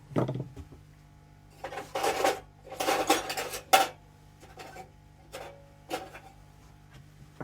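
Small metal hand tools, screwdrivers and loose hardware, clattering and clinking against each other on a table as they are rummaged through. There are two longer rattles about two and three seconds in, and single knocks here and there.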